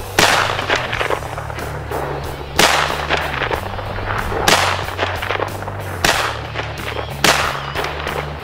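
Five rifle shots from an AR-15, fired at uneven intervals of roughly one and a half to two and a half seconds, with background music and a steady bass line underneath.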